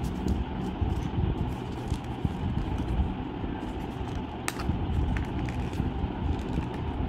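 Steady low rumble in the background, with a few light clicks and crinkles of paper being folded and creased by hand, one sharper click about four and a half seconds in.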